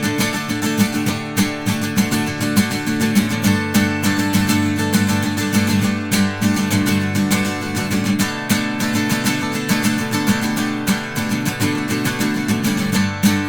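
Instrumental break in an indie folk song: acoustic guitar strummed in a steady rhythm, with no singing.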